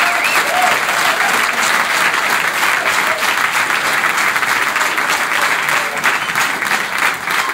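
Audience applause from a comedy-club crowd after a punchline, steady and thinning slightly near the end, with a warbling whistle at the start.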